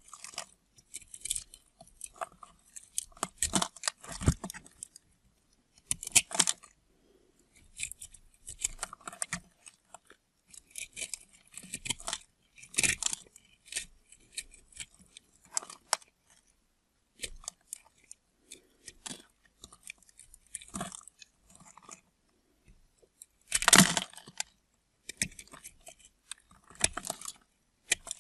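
A knife cutting through dry bar soap into cubes: crisp, crunchy scraping strokes in irregular bursts with short pauses between, the loudest cut about 24 seconds in.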